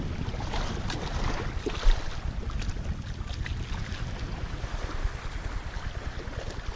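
Wind buffeting the microphone over shallow sea water lapping, with scattered short crackles and one sharp thump about two seconds in.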